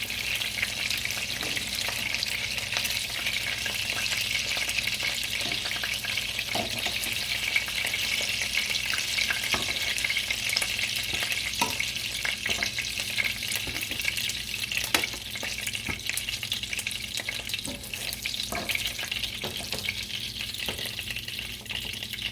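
Chicken cutlets frying in hot olive oil: a steady, bright sizzle, with a few scattered clicks of a fork against the pan as the cutlets are lifted out.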